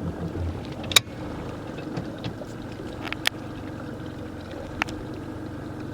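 Boat on the water: a steady low hum and water noise, with a few sharp knocks, the loudest about a second in.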